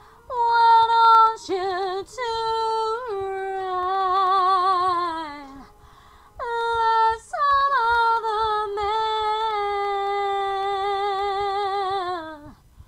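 A woman singing solo without accompaniment: two long held phrases with vibrato, each ending in a downward slide, with a short gap in the middle.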